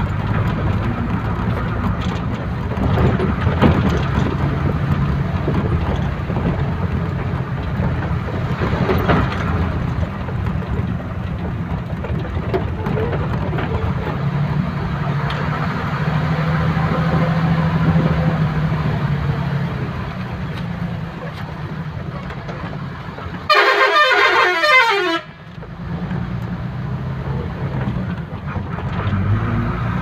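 Steady engine and road rumble heard from inside a moving vehicle on a dirt road. About three-quarters of the way through, a loud horn blast of about a second and a half falls in pitch.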